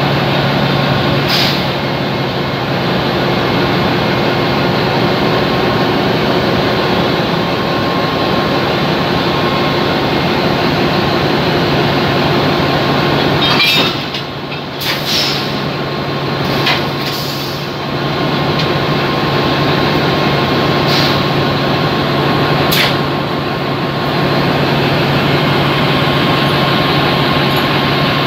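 Alsthom diesel-electric locomotive idling at a standstill, a loud, steady engine hum. Several short sharp clicks come through it from about halfway in.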